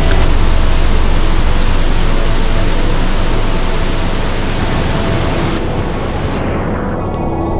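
Rushing mountain stream water, a loud steady hiss; the brighter, higher part of the sound fades away in the last second or two.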